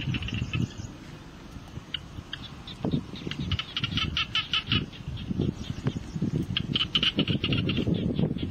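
Small animals calling outdoors in rapid chattering trains of high chirps, three bursts about a second long each, over a low uneven rumble.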